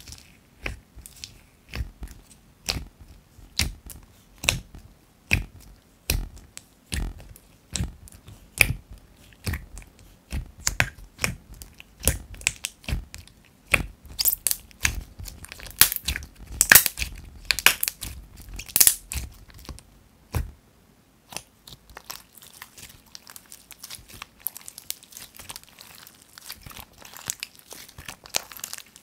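White slime topped with clay cube charms being poked and squeezed in its tub, giving sharp crunchy clicks and pops, about one or two a second, loudest in the middle. About two-thirds of the way through these give way to a steady fine crackling as the slime is stretched and folded by hand.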